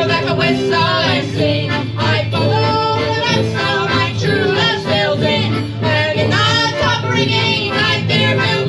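Live folk band playing a sea shanty: fiddle, accordion, guitar and sousaphone together, with a steady low bass under a wavering melody line.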